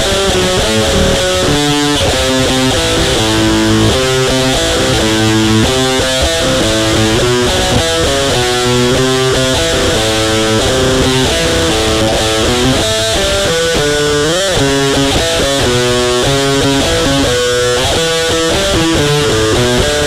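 Crunch-distorted electric guitar with reverb playing a heavy-metal riff of quickly changing notes, with one note bent up and back down about two-thirds of the way through.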